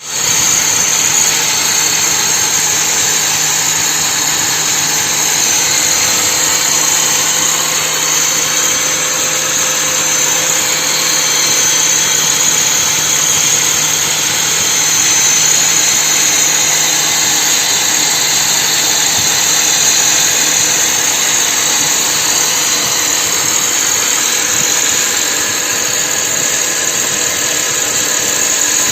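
Machine tool running steadily, a continuous mechanical noise with a high steady whine over it.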